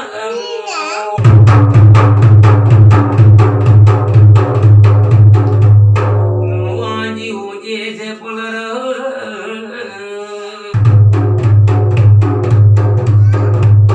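Large hand-held frame drum beaten in a fast, even rhythm of about four strokes a second, with a deep booming tone. The drumming stops after about six seconds while a man sings a devotional chant, then starts again about eleven seconds in.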